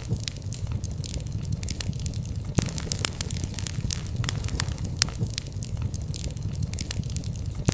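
Wood fire in a fireplace crackling, with sharp, irregular pops and snaps over a steady low background noise.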